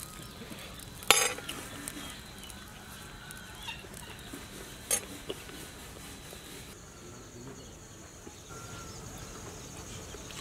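Quiet rural outdoor ambience with faint bird calls and two sharp clicks, about a second in and about five seconds in. A steady high-pitched drone sets in about two-thirds of the way through.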